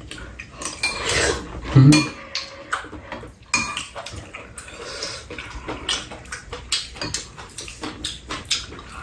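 Metal spoons and chopsticks clinking and scraping against ceramic bowls and a pan during a meal, in many short irregular clicks. A louder knock comes about two seconds in.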